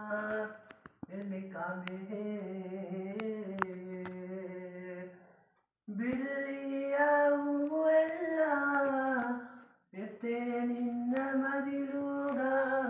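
A young man singing solo and unaccompanied, in long held, wavering notes, phrase by phrase, with short breaths between the phrases.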